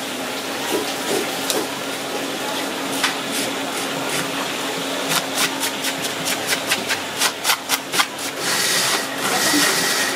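Plastic fish scaler scraping scales off a whole fish on a wooden chopping block: a run of quick, sharp scraping strokes, coming faster and harder past the middle.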